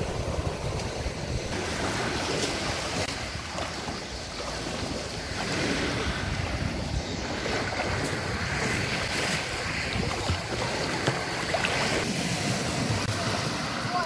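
Small Black Sea waves washing in, swelling every few seconds, with wind buffeting the microphone.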